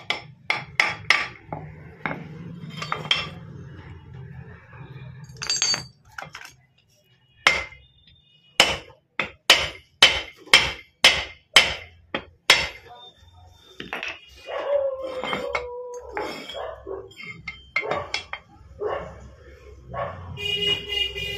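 Hammer blows on steel parts of a motorcycle gearbox being assembled, driving a part onto its shaft. A few quick strikes come at the start, then a steady run of about ten blows, about two a second, in the middle.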